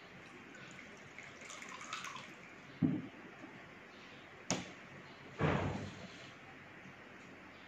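Water trickling briefly from a small glass jug into a glass bowl. Three separate knocks follow as the jug and a plastic bottle are handled on a plastic tray; the middle one is a sharp clink.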